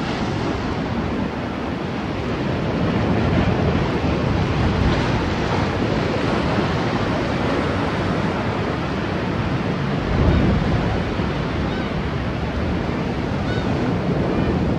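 Sea surf washing and breaking against a rocky shore, with wind on the microphone; a steady rush of noise.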